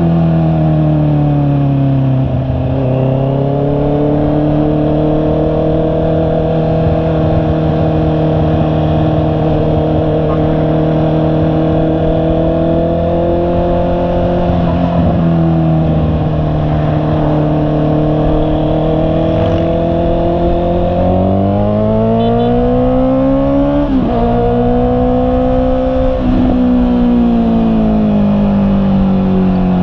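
Honda CB650R's inline-four engine under way: it holds a steady note while cruising, then revs up about two-thirds of the way in. The pitch drops sharply twice as it changes up through the gears, then eases off near the end.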